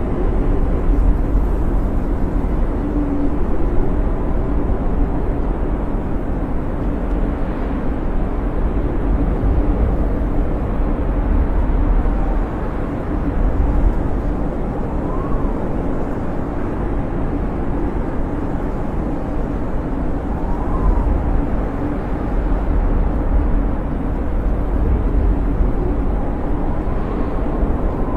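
Snowstorm wind howling: a steady, low rushing noise with a faint whistle that rises and falls in pitch a few times.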